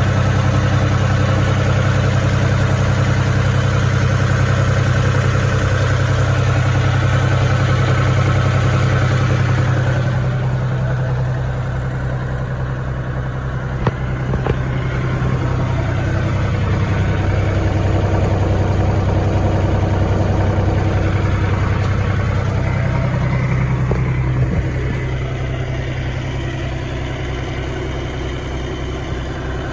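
John Deere 5250 compact utility tractor's diesel engine idling steadily.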